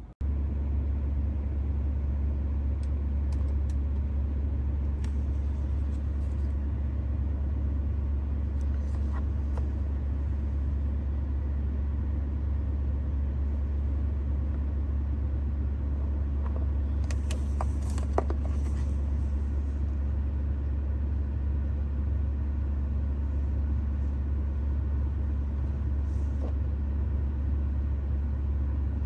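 A vehicle running, a steady deep rumble that holds unchanged, with a few light clicks and taps over it, a cluster of them partway through.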